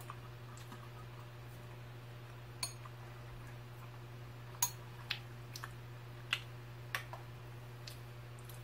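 Metal spoon clinking against a ceramic bowl of cereal in milk: about six light, separate clinks as it stirs and scoops, over a steady low hum.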